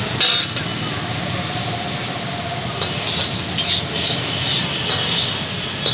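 Chicken liver sizzling and bubbling in its juices on a large flat tawa: a steady hiss, with short crackling spurts about twice a second from about halfway through.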